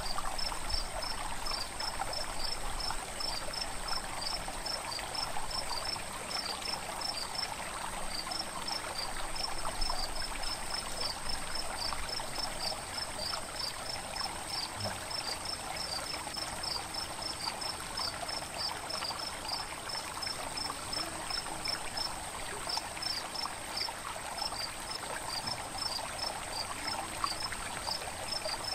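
Night insects: a steady high-pitched drone with a cricket chirping over and over, several times a second with brief pauses, over a soft even rushing noise like running water.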